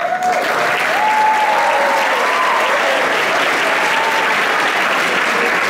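Large audience applauding, starting all at once and holding steady, with a few voices cheering over the clapping.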